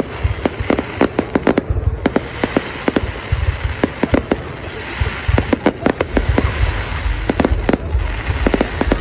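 Aerial fireworks display: a rapid, irregular run of sharp cracks, several a second, over a continuous low booming from the shell bursts.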